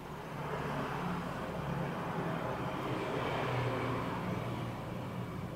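A motor vehicle passing by: its engine and road noise swells to a peak a few seconds in and then fades.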